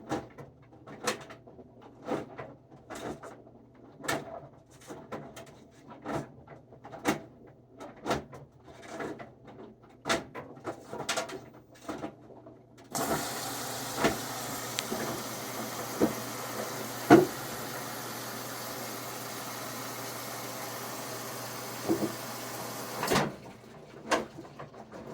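Whirlpool WFW92HEFC0 front-load washer with its top off, knocking repeatedly, roughly once or twice a second. This is the knocking noise under investigation, which comes when the drum stops rotating. About halfway through, a steady rushing hiss starts and runs for about ten seconds while the knocks go on.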